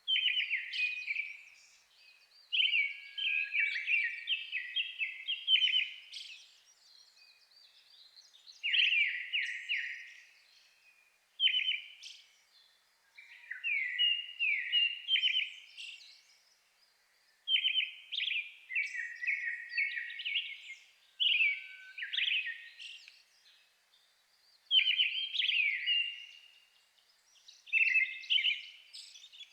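Thrushes singing: a brown-headed thrush with a Japanese thrush close by, trading phrases of clear whistled notes, each phrase one to three seconds long and separated by short pauses. The nearby Japanese thrush is the more powerful singer.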